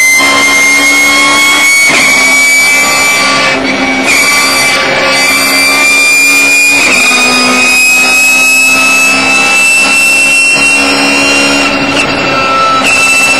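Race car engine at high revs, heard from inside the cockpit, its pitch climbing slowly and steadily under acceleration, then easing off slightly near the end.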